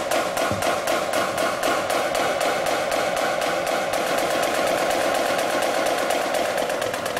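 Marching snare drum played without a break: a fast, even stream of strokes with regularly repeating accents over a continuous drum sound.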